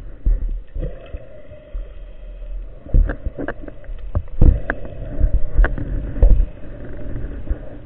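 Underwater sound heard through a speargun-mounted camera: a steady water rush, with a series of sharp knocks from about three seconds in, the loudest about three and four and a half seconds in.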